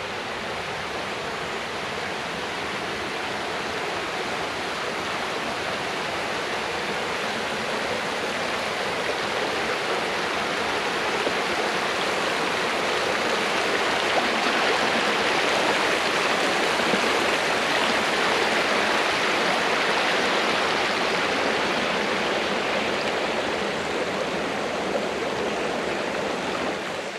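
The Lackawanna River rushing over rocks: a steady noise of flowing water that grows slowly louder toward the middle and eases off near the end.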